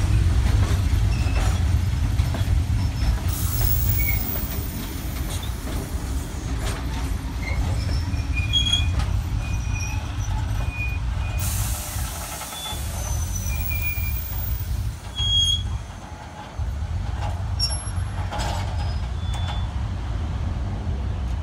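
Heritage passenger carriages of a steam train rolling past on the rails: a heavy low rumble of wheels on track, with scattered clicks from the rail joints and short high wheel squeals. Two stretches of hissing break through, a brief one early and a longer one of a few seconds about midway.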